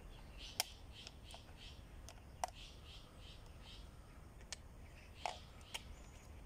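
A handful of sharp, irregularly spaced clicks from a handheld ham radio transceiver being handled and its controls worked, over faint rhythmic chirping in the background.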